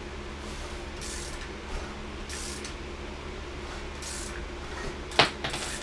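Compressed air hissing out of the open spark plug holes of a Honda J-series V6 as it is turned over by hand, in several short puffs as each piston comes up on compression. A single sharp click near the end.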